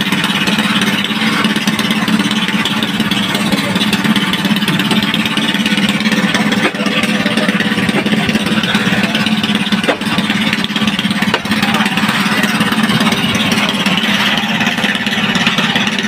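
Fishing boat's engine running steadily with a constant low hum.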